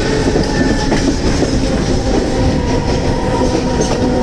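Mumbai suburban electric local train running, heard from its open doorway: a steady loud rumble and clatter of wheels on the track, with a steady motor hum.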